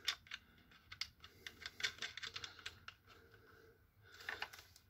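Scattered light clicks and taps of metal on plastic: the guide-bar nuts and the combination spanner being handled against a chainsaw's plastic side cover as the nuts go on. The clicks come mostly in the first three seconds, with a few more near the end.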